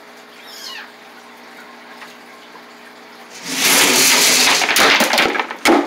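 Water splashing and sloshing loudly for about two seconds, starting a little past halfway, then one more short splash near the end.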